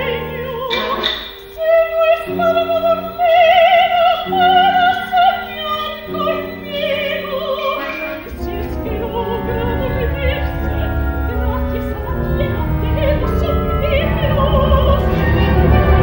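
Operatic female voice singing with wide vibrato over an orchestra. About eight seconds in, the orchestra swells into a louder, deeper passage that keeps building.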